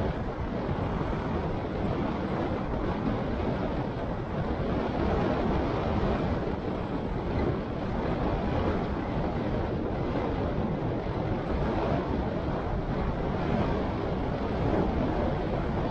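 A car driving along city streets: a steady rumble of road and wind noise with no sudden events.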